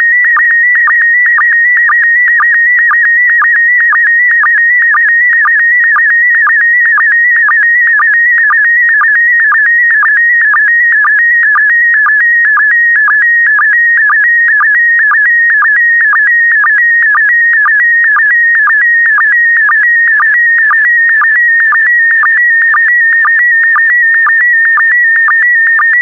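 Slow-scan TV (SSTV) picture signal in PD120 mode: a loud, high electronic tone that warbles quickly, broken by a short lower blip at an even rate of about twice a second. The blips are the line sync pulses, and the warble between them carries the image being sent line by line.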